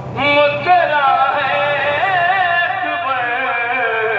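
A man singing a line of an Urdu qasida in a drawn-out, melodic style, holding long notes with a wavering pitch.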